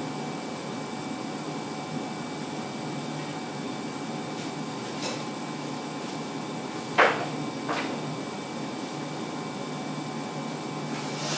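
80-watt CO2 laser engraver running while it engraves a pattern into plywood: a steady machine whir and hum. A sharp click about seven seconds in is the loudest sound, with a softer one just after and fainter clicks around five seconds in and near the end.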